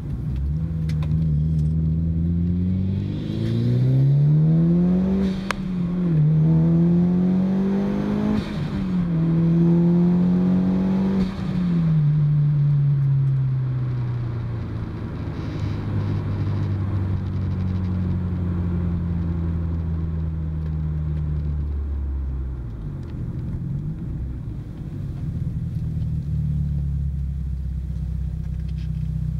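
Mitsubishi Lancer Evolution VIII FQ-340's turbocharged 2.0-litre four-cylinder engine, tuned to about 420 bhp, heard from inside the car. It pulls up through the gears, its note rising and dropping at each of two gear changes. It then eases off, cruises at steady revs, and settles to a low steady note as the car slows near the end.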